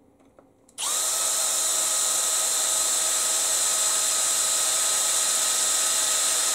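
Milwaukee Fuel cordless drill running at steady speed, drilling out a rivet in a telescoping pole saw's extension pole. It starts about a second in, holds one even pitch for nearly six seconds, and stops abruptly near the end.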